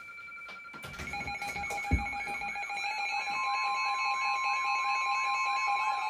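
Several NOAA weather radios sounding their alert alarms together for a flash flood warning: steady electronic tones at different pitches stack up, one warbles about three times a second, and a steady weather-radio alert tone near 1 kHz joins about three seconds in. A single dull thump near two seconds.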